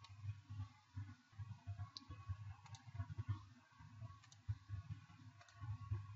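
Faint, scattered computer mouse clicks, about half a dozen single clicks, over a low background rumble.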